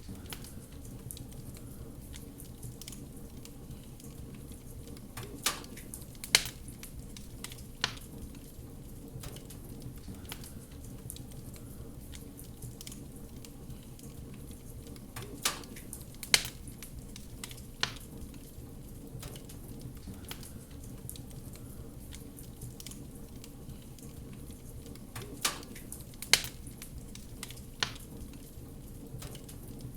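Wood fire burning in a fireplace: a steady low rumble with soft crackling, broken by sharp pops in groups of three, the same group coming back every ten seconds as in a looped recording.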